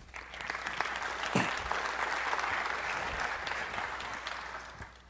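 Audience applauding, building up over the first second and fading out near the end.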